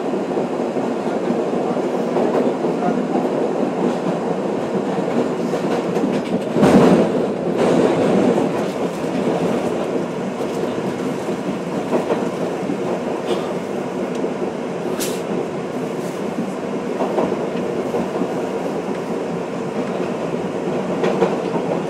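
R62A subway train running through a tunnel, heard from inside the front car: a steady loud rumble with the clatter of wheels over the rails. About six to eight seconds in, the noise swells into a louder rush before settling back.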